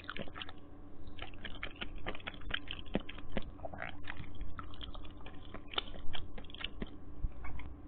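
Close-up eating sounds of Maggi instant noodles: quick, irregular wet clicks and smacks of chewing, several a second, stopping shortly before the end.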